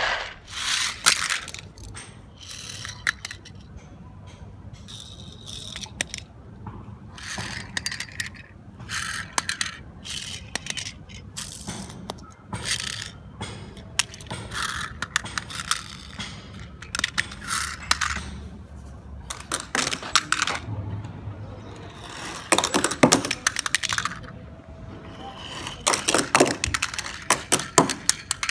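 Small die-cast toy cars scraping across a stone ledge and clinking against each other and the stone, in many short, irregular bursts.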